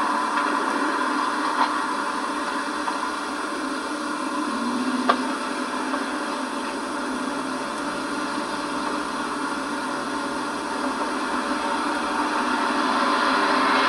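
A car's 302 V8 engine running at a distance under a steady hiss, fading and then growing louder over the last few seconds as the car comes back. One brief click about five seconds in.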